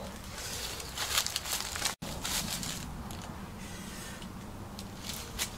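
Dry fallen leaves crackling and rustling as mangoes are picked up out of the leaf litter, with the sharpest crackles in the first two seconds and softer rustling after.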